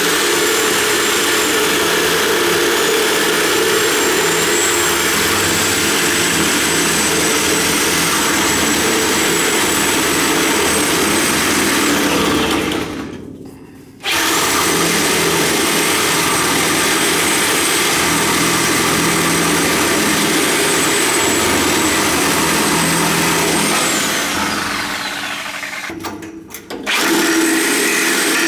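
Reciprocating saw (Sawzall) with a metal-cutting blade running steadily with a high whine. It winds down and stops twice, about halfway through and near the end, starting straight back up each time.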